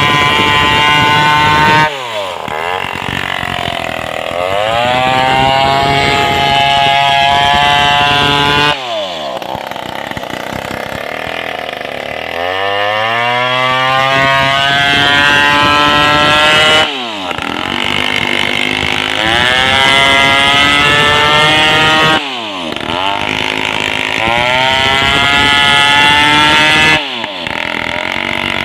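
Two-stroke Stihl chainsaw running at high revs while sawing a sengon log. Five times the engine note drops off sharply and then climbs back up to full speed over a couple of seconds.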